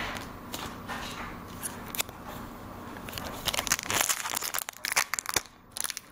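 Foil Pokémon booster pack wrapper crinkling as it is torn open, the crackling densest and loudest in the second half.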